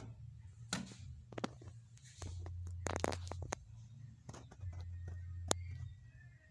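Scattered sharp clicks and rustles of handling, over a low hum that comes and goes in stretches of a second or so.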